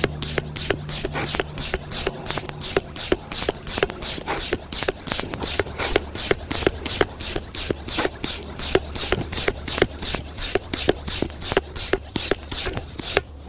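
Hand pump for an inflatable stand-up paddleboard worked in quick, even strokes, each a short hiss of air, about three a second. The board is still filling at near-zero pressure, so the pump meets little resistance. The pumping stops near the end.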